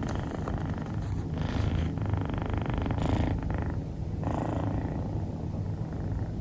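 Scottish Fold kitten snoring in her sleep: three snoring breaths about a second and a half apart over a steady low rumble.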